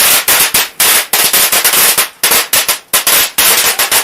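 A string of firecrackers going off: loud, rapid, irregular bangs, about four a second, which cut off suddenly near the end.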